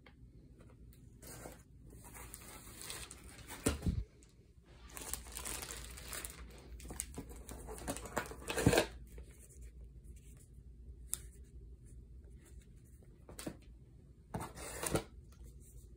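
Packaging being torn open and handled: irregular bursts of tearing and crinkling, with a few sharp knocks, the loudest about halfway through.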